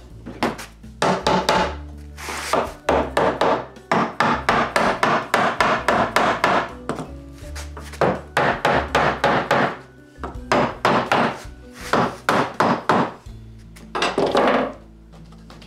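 A mallet striking a wooden table leg in rapid runs of sharp knocks, several a second, with short pauses between the runs, driving out a leg that is screwed and glued into the table's frame.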